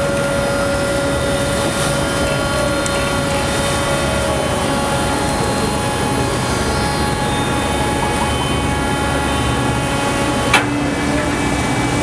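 Boat engine running steadily underway, a loud drone with a few steady humming tones. A sharp click comes about ten and a half seconds in, after which the main hum sits lower in pitch.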